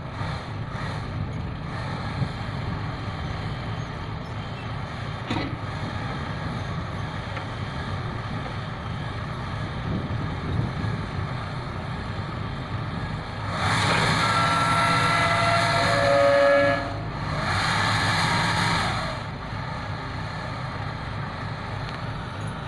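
Heavy diesel construction machinery running at a steady low rumble, with two louder stretches of a few seconds each, starting about fourteen and eighteen seconds in. No regular pile-hammer blows.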